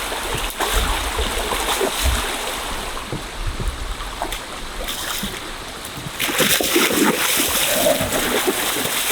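Running river water, with louder splashing from about six seconds in as a hooked salmon is hauled in on a hand line.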